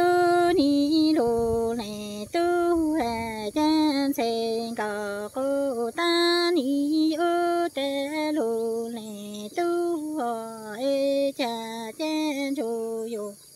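A woman singing Hmong kwv txhiaj (sung poetry) unaccompanied, in long held, wavering notes in phrases with short breaks for breath. The singing stops near the end.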